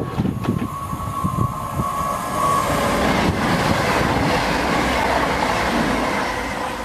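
A Virgin Trains express passenger train passes close by at speed: a continuous rush of wheels on rail and air. A steady high whine sounds through the first two and a half seconds, then the noise eases slightly near the end.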